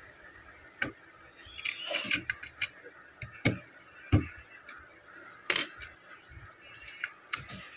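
Irregular clicks and light knocks of a CPU being seated in its motherboard socket and the socket's metal load plate and retention lever being closed and latched by hand, the loudest a dull thump about four seconds in.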